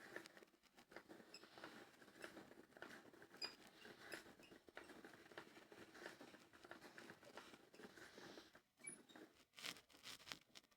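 Faint, continuous crackling and grinding from a washing machine's drum as it turns, made of many small clicks and rustles and dipping briefly near the end. This is the sound of worn drum bearings.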